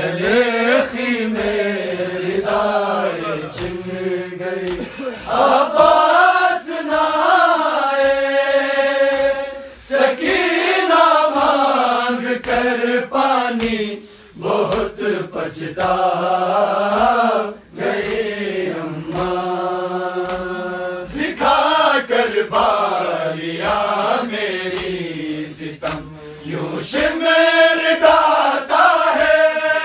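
Men's voices chanting a noha, a Muharram lament, in a melodic line that rises and falls, with short breaks between phrases and occasional sharp beats.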